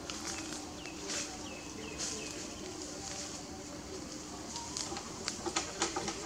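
Short, high chirping calls, repeated several times in the first two seconds or so, over a low steady hum; a run of sharp clicks follows near the end.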